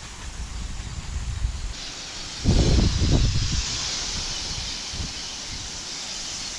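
Water spraying from a garden hose onto plants, starting about two seconds in as a steady hiss. A loud low rumble for about a second shortly after it starts, like wind or handling on the microphone.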